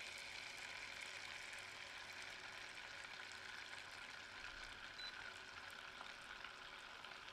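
Butter sizzling faintly in a stainless steel pot on an induction hob, a soft steady hiss with small crackles, as the block starts to melt at the bottom.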